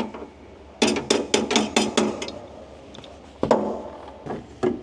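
Metal-on-metal clanking while working on the brake linkage of a WWII self-propelled gun: a quick run of about eight ringing knocks over a second and a half, then a few single knocks.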